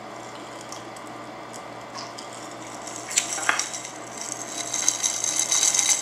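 Quiet steady room hum, then from about three seconds in a crackling, rustling noise close to the microphone that grows louder.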